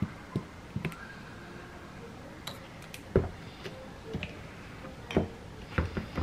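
A spoon tapping and scraping against a small white ceramic bowl as syrup is stirred into a dark sauce: a run of irregular light knocks, the loudest about three seconds in.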